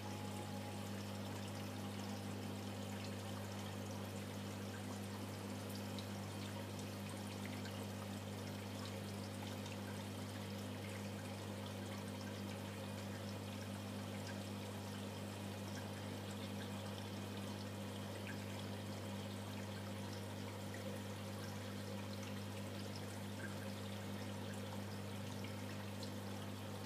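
Reef aquarium's water circulation: a steady trickling, pouring rush of water with a constant low hum underneath.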